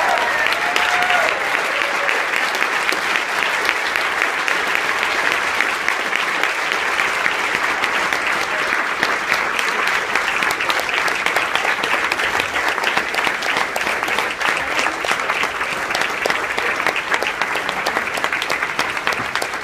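An audience applauding, a dense steady clapping that goes on without a break.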